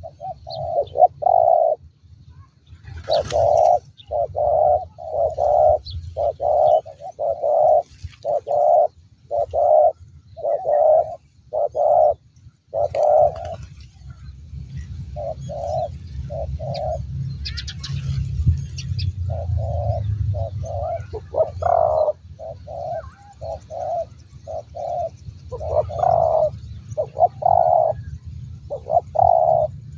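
Spotted doves cooing, a long run of short repeated coos at one or two a second, with a brief pause a little before halfway. A low steady rumble runs underneath, stronger in the second half.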